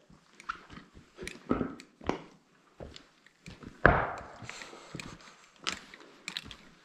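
Loose slate knocking and clattering: a run of sharp clicks and thuds, with one loud thud about four seconds in that rings on briefly.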